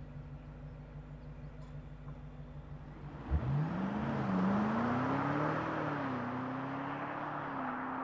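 BMW G90 M5's twin-turbo V8 heard through an Akrapovič titanium slip-on exhaust. It runs steadily at low revs, then about three seconds in there is a thump and the engine pulls up in revs, its note rising and wavering as the car drives on.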